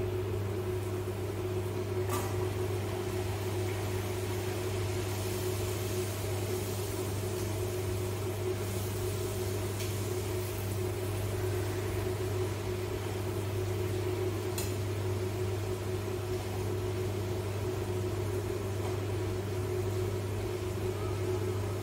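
Puri frying in hot oil in a wok with a faint, even sizzle, under a steady low machine hum, with a few light clicks of the slotted spoon against the wok.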